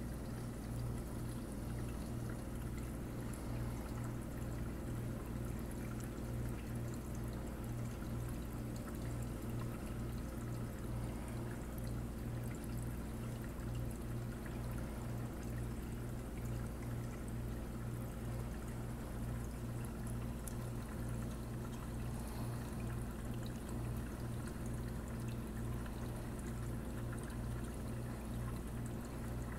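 Reef aquarium's running water system: a constant trickle and pour of circulating water over a steady low pump hum that pulses evenly and rapidly.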